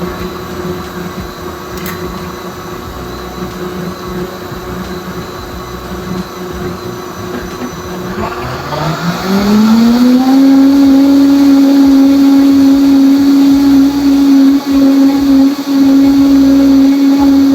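Vitamix blender motor running on a jug of liquid cashew milk. About eight seconds in it ramps up in pitch to high speed and holds there, loud and steady.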